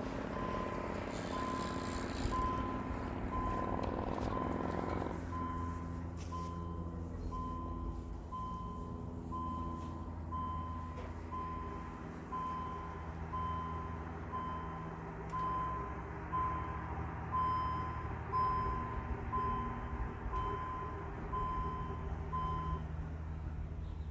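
Level-crossing warning signal beeping with a clear electronic tone about once a second while the boom barriers lower, stopping near the end once they are fully down. A steady low rumble runs underneath.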